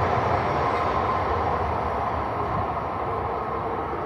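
Tohoku Shinkansen train running away from the platform, its steady rumble slowly fading.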